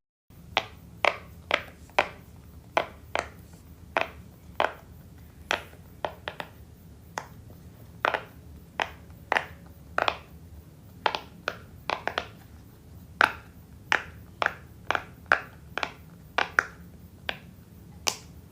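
A hand-held fidget toy being worked, giving a series of sharp clicks at about two a second, unevenly spaced, over a faint low hum.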